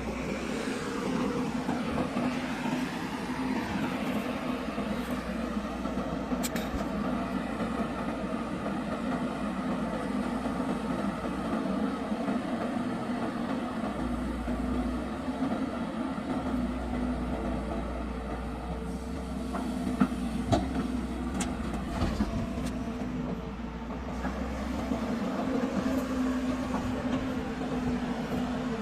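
Heavy diesel machinery running steadily, with a few sharp knocks, two of them close together about twenty seconds in.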